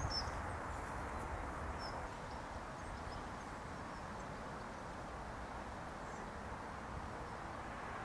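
Steady outdoor background noise with a couple of faint, high bird chirps in the first two seconds.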